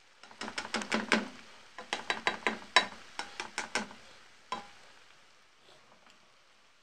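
Plastic spoon stirring frying cabbage in a pot: a quick run of knocks and scrapes against the pot for about four seconds, then one more knock, over a faint sizzle.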